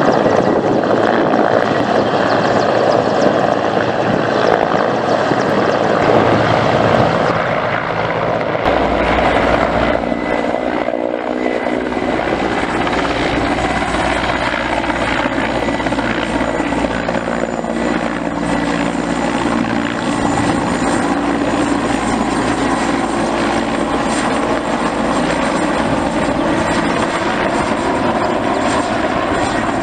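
Mil Mi-8T helicopter in low flight: its main rotor beating over the steady run of its twin Klimov TV2-117 turboshaft engines, with a steady high tone. A deeper low rumble comes in about eight or nine seconds in.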